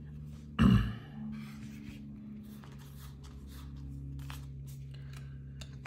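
Trading cards being handled and sorted: light rustling and small clicks as cards are slid apart and laid down on a playmat. One short loud sound comes about half a second in, and a steady low hum runs underneath.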